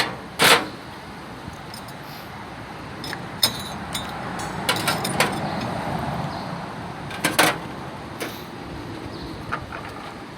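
Metal transmission parts clinking and storage drawers sliding and knocking shut as parts are put away. Scattered light clicks, with two louder knocks, about half a second in and about seven seconds in.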